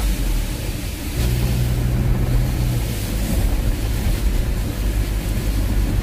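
Car cabin noise while driving a wet road in heavy rain: a steady low engine hum under an even hiss of tyres and rain.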